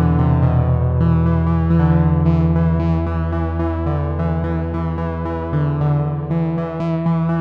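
Electronic synthesizer music: a steady low drone under sustained keyboard-like chords whose notes shift about once a second.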